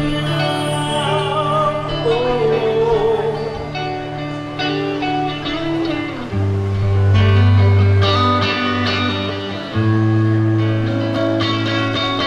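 Live rock band playing: electric guitar, bass guitar and drums, with sustained guitar notes over a heavy bass line.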